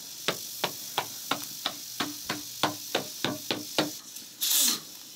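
A quick run of about a dozen light taps, roughly three a second, each with a short ring, then a brief loud hiss of steam about four and a half seconds in as the pressure cooker's valve weight is lifted by hand.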